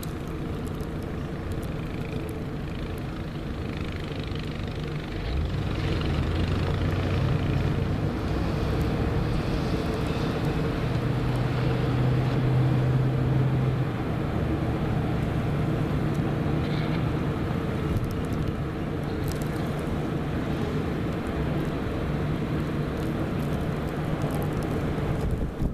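An engine running steadily, getting louder with its note shifting about five seconds in.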